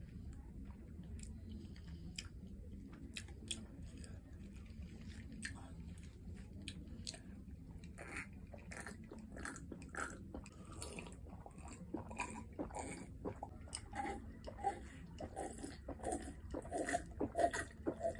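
Close-miked mouth sounds: scattered lip smacks and clicks at first, then from about eight seconds in, repeated gulping and swallowing while drinking from a glass, the gulps coming quickly and louder near the end.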